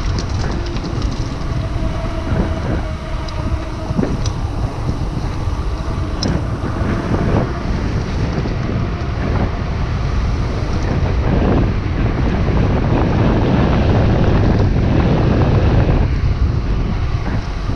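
Wind rushing over an action camera's microphone, with the rumble of mountain-bike tyres rolling fast on an asphalt path and a few light clicks and rattles from the bike. The rush grows louder for a few seconds after the middle, then eases near the end.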